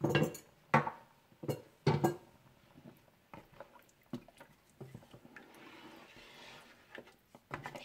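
Metal spoon stirring spiced meat and water in a cooking pot, clanking sharply against the pot four times in the first two seconds, then lighter, irregular knocks.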